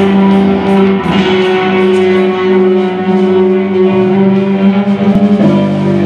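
Live postpunk band playing: electric guitars and an electric bass ring out in sustained chords over a drum kit, whose cymbals strike a steady beat.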